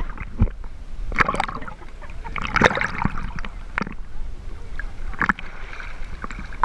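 Water splashing around a boat, with several separate splashes over a low steady rumble.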